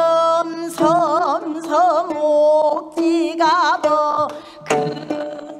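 Gayageum byeongchang: a woman holds drawn-out sung vowels with a wide, wavering vibrato while plucking the twelve-string gayageum. Sharp plucked string notes fall between and under the held notes.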